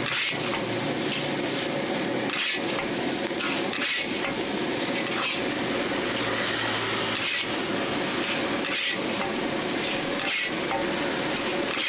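Metal spatula knocking and scraping against a wok as fried rice is tossed, a sharp strike about every one and a half seconds over a steady rushing noise.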